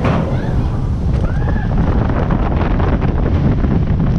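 Loud, steady rush of wind buffeting the microphone, with rushing water, as a log flume boat plunges down the ride's big drop.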